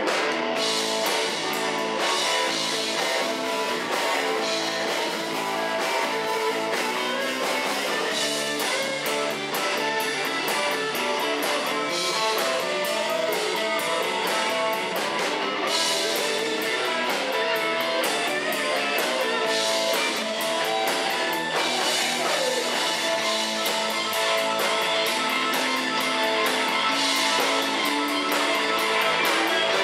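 Live rock band playing, with an electric guitar from a Stratocaster-style instrument to the fore over a drum kit.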